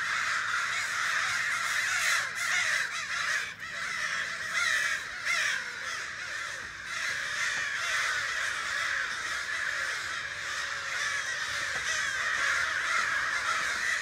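A large flock of crows cawing, many calls overlapping without a break.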